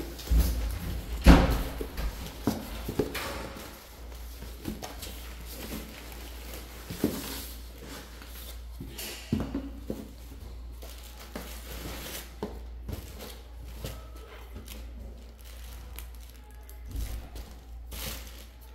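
Cardboard boxes and packaged merchandise being handled: a loud thump about a second in as a box is set down, then scattered knocks and rustling of boxes and plastic packaging.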